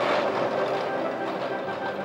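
Electric tram running along street track, its wheels and running gear rumbling on the rails, with background music.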